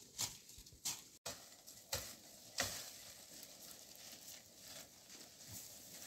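A few faint, uneven scuffing steps on rough ground, about four in the first three seconds, then a low steady background.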